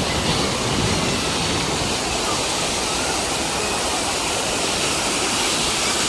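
Small waterfall of a river channel pouring over a stone weir into a churning pool, a loud, steady rush of white water.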